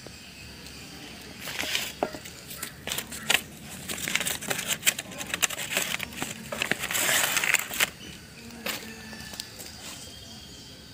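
Raw chicken pieces sizzling and crackling as they fry in hot oil with shallots and dried red chillies in an aluminium pot over a wood fire. Dense sharp crackles run from about a second and a half in to about eight seconds in, then settle to a quieter sizzle.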